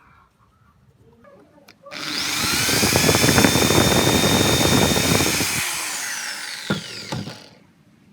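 A power tool's motor switched on, spinning up quickly to a steady high whine, running for about five seconds, then winding down after it is switched off, with a couple of light knocks near the end.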